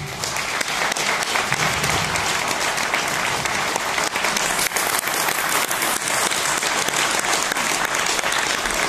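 Audience applauding: dense clapping that swells up at the start and then holds steady.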